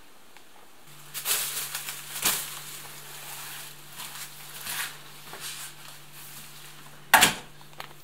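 Rustling and shuffling of a padded coat and plastic shopping bags being handled, over a low steady hum, with one sharp knock about seven seconds in.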